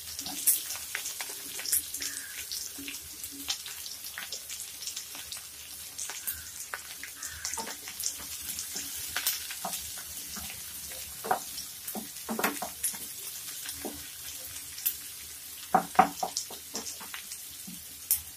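Freshly added sliced onions frying in hot oil in a nonstick pan: a steady sizzle with many sharp crackles. In the second half a wooden spatula stirs them, with scrapes and knocks against the pan.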